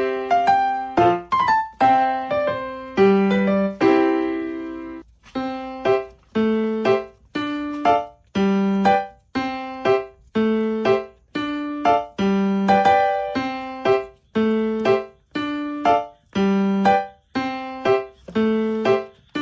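Background music: piano or electric-piano notes struck in a steady, repeating pattern of about two a second.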